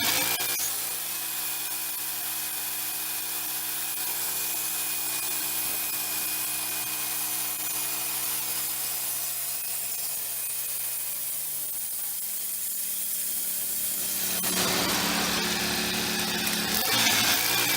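Wood-Mizer bandsaw mill running, its band blade sawing through a black walnut log with a steady hiss over the hum of the mill's engine. The engine gets louder about fourteen seconds in, for a few seconds.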